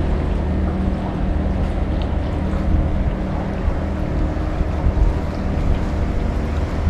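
Steady low rumble and hiss of wind on the microphone over open water, with a steady low hum underneath.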